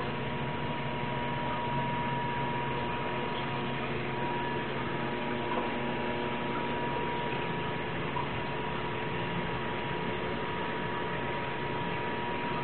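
Steady hum and hiss with a thin, unchanging high tone above it, no distinct events.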